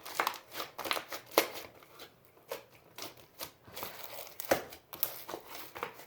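Crunchy slime being stretched, squeezed and dropped by hand, giving a string of irregular crackles and snaps, the loudest about a second and a half in and again a little past four seconds.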